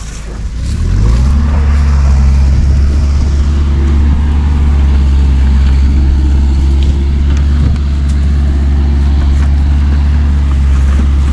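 A large engine close by revs up about a second in, then runs loud and steady at a constant speed.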